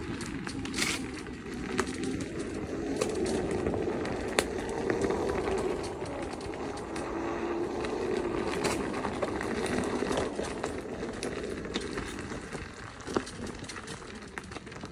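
King Song S22 electric unicycle riding over a rough dirt trail: its hub motor whines, the pitch rising and falling with speed, over a steady rumble of the tyre on stony ground, with a few sharp knocks.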